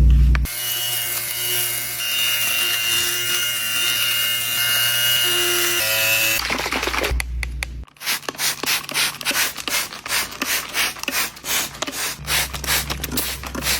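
Background music of held notes, then from about halfway quick rhythmic scrubbing strokes, several a second, like a brush worked back and forth over couch upholstery.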